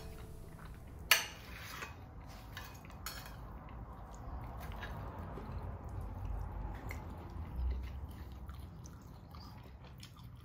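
Knife and fork on a ceramic plate, cutting up a pancake: a sharp clink about a second in, then a few light taps and scrapes.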